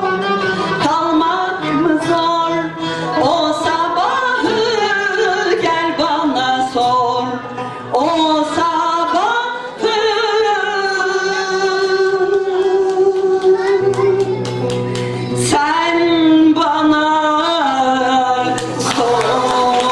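A female soloist singing a Turkish art music song, backed by a Turkish classical ensemble of kanun, ud and hand drums. The voice slides up into notes and holds long tones, with steady drum strikes underneath.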